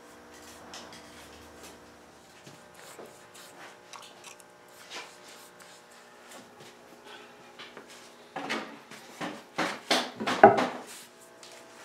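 Mahogany table leaves handled on a wooden workbench while oxalic acid is wiped on: soft rubbing and scattered light taps, then a run of louder wooden knocks and clatter in the last few seconds as a leaf is lifted and turned. A faint steady hum lies underneath.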